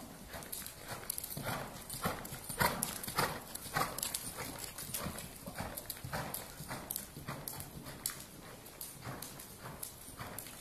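A ridden horse's hoofbeats on the soft sand footing of an indoor riding arena, in a steady rhythm of about two beats a second.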